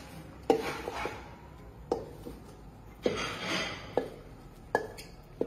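Wooden spoon knocking and scraping against a metal bowl while chopped spinach is scraped out of it into a pot: about five sharp knocks with a short ring, and a rustling scrape a little past the middle.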